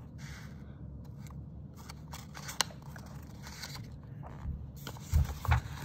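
Paper pages of a picture book rustling and crackling as a page is turned by hand, with a sharp click partway through. Two low thumps near the end.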